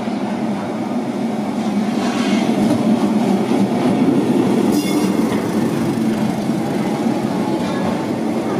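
Lisbon four-wheel remodelado electric tram running along street rails as it approaches and passes close by, growing louder to its peak about four seconds in, then easing off as it moves away. A short sharp high-pitched sound comes about five seconds in.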